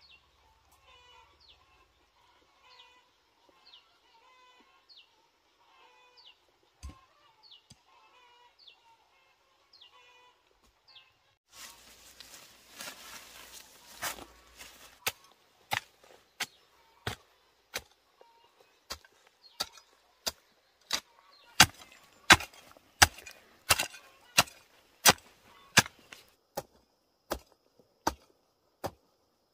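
A long-handled hoe chopping into dry soil and stubble in a steady rhythm of about three strikes every two seconds, starting about halfway through. Before that there is a rustle of leafy plants lasting a few seconds, and earlier still faint bird chirps.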